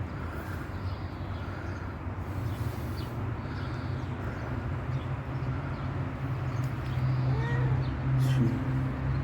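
A steady low rumble that grows louder near the end, with faint bird chirps above it and a short rising-and-falling call late on.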